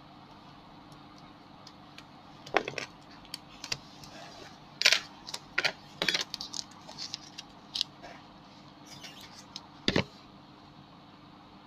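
Scattered clicks, taps and light knocks of small hard parts and tools being handled while a laptop display panel is taken apart, loudest about five and ten seconds in, over a steady faint hum.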